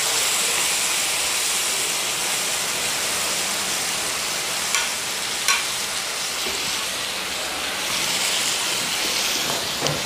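Pork belly and kimchi sizzling steadily on a hot grill pan, with two light clicks about halfway through.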